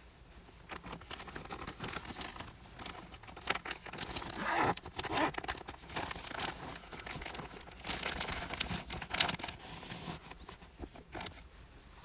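Rustling and crinkling of a fleece blanket and wrapped bedding being handled and pressed into a storage case, with small knocks against the case. It comes in irregular handling noises, busiest about halfway through and again near two-thirds of the way.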